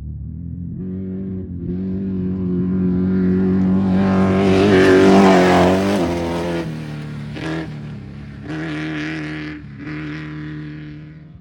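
Off-road race vehicle engine passing at speed, building to its loudest about five seconds in, then dropping in pitch as it goes away, with two short throttle bursts near the end as it fades.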